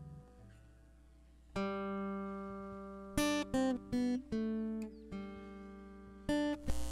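Acoustic guitar playing a slow line of single plucked notes that ring on, ending in a strummed chord.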